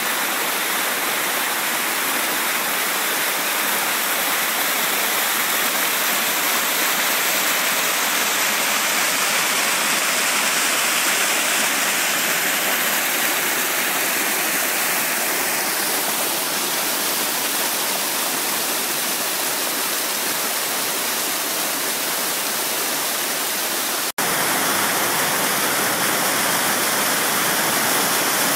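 Small waterfall pouring down across a hillside path, a steady rush of water. It breaks off for an instant near the end and goes on with a slightly different tone.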